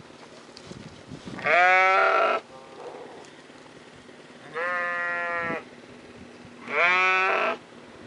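Sheep bleating three times, each call about a second long; the middle call is quieter and steadier in pitch than the other two.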